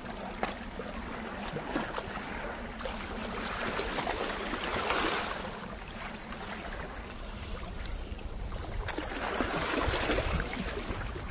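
Small waves washing over a low rock ledge and draining back off it, swelling twice. One sharp click about nine seconds in.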